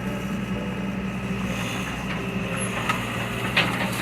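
Excavator diesel engine running steadily while it works on the broken concrete foundation, with a few sharp clanks in the second half.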